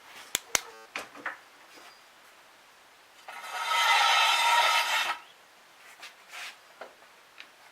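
A few sharp clicks and knocks, then a loud rasping scrape lasting about two seconds, followed by a few light knocks.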